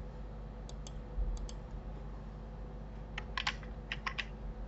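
Clicks of a computer keyboard and mouse, the sound of someone working at a computer. There are a few quick pairs of clicks, then a rapid cluster about three seconds in, then two more near the end.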